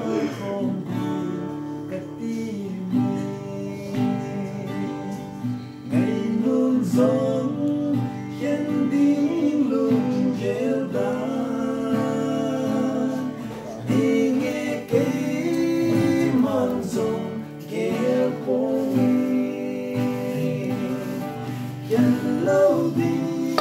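A man singing, accompanied by an acoustic guitar.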